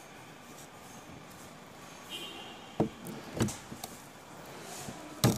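Metal parts of a 1996 Toyota Hilux power steering box knocking and clicking as the valve and worm-shaft assembly is handled and set into the cast housing: two sharp knocks about half a second apart near the middle, a few small ticks, and the loudest knock near the end.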